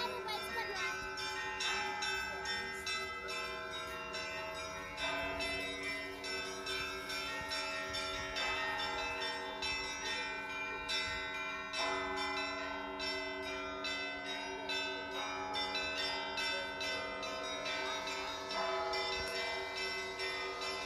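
Russian Orthodox church bells ringing: smaller bells struck in quick, overlapping patterns over a wash of lingering tones, with a deeper bell struck every six or seven seconds.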